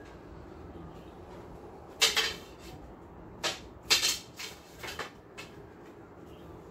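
Wooden practice swords clacking together as two sparrers strike and parry: a quick, uneven series of sharp wooden knocks, the loudest about two and four seconds in, with lighter taps after.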